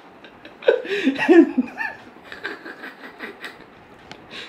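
A woman laughing, a burst of chuckles about a second in, then trailing off into softer giggles.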